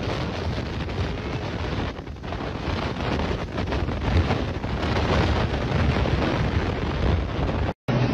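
Strong storm wind gusting hard and buffeting the microphone: a dense, loud rushing that rises and falls with the gusts.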